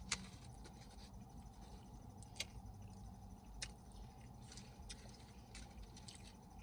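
Quiet eating sounds close to the microphone: a few sharp mouth clicks and smacks while chewing, spaced a second or more apart, over a low steady background.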